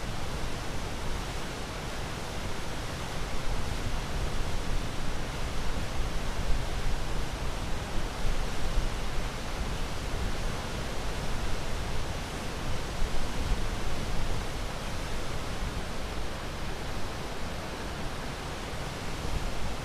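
Ocean surf: a steady, even wash of breaking waves that swells gently louder and softer over several seconds.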